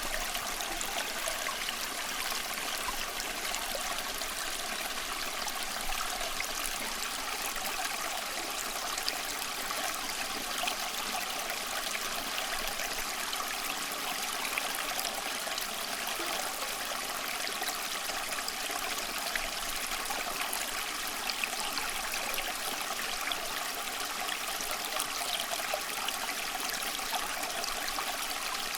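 Steady running water of a stream, flowing and trickling in an even, unbroken hiss with small splashy flickers.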